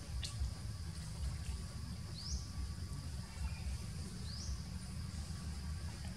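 Outdoor ambience: a short high chirp rising in pitch repeats about every two seconds over a steady high insect drone and a low rumble.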